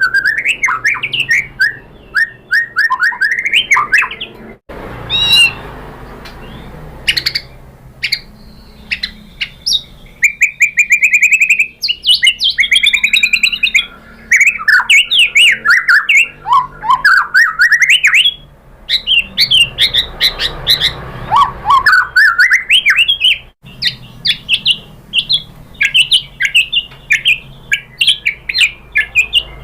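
White-rumped shama (murai batu) singing continuously: a fast, varied run of loud whistled phrases, up-and-down sweeping notes and chattering trills.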